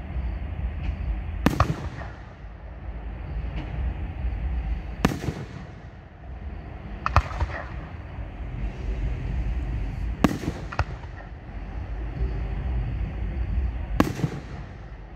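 Aerial fireworks shells bursting: about six sharp bangs a few seconds apart, two in quick succession about ten seconds in, over a steady low rumble.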